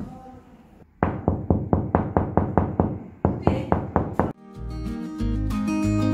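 A quick series of about fifteen knocks on a hollow plasterboard wall, each with a short ring. About four seconds in, background music with guitar and bass starts.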